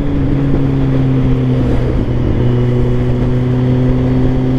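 Kawasaki Z800's inline-four engine through an Akrapovic exhaust, running at steady revs while cruising, with wind rumble on the helmet-mounted microphone.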